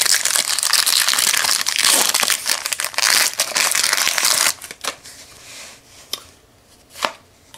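Foil wrapper of a Topps baseball card pack being torn open and crumpled by hand, a loud, dense crinkling that stops about four and a half seconds in. Softer rustles and clicks of the cards being handled follow, with one sharp click near the end.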